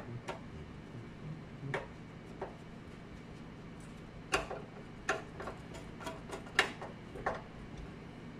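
Light, irregular clicks and taps from hands and tools working on a light fixture, about nine in all, loosest in the second half, over a faint steady hum.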